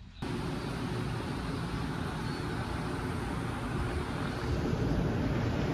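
Steady outdoor city ambience, mostly the hum of traffic on the street below. It starts abruptly a moment in.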